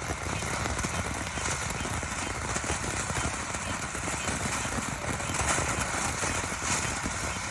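Fireworks crackling: a dense, continuous rattle of small rapid pops, with no single big bang standing out.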